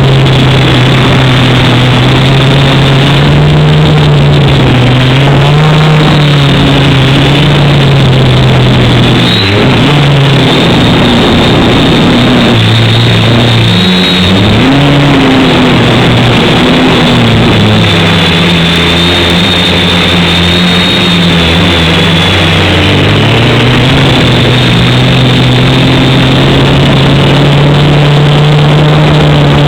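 Quadcopter's electric motors and propellers humming loudly, their pitch dropping and wavering with the throttle through the middle before settling back to a steady hum.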